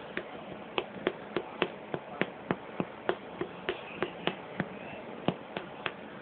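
Fingers flicking at a cat's head and ears: a quick, even series of sharp clicks, about three a second, that stops shortly before the end.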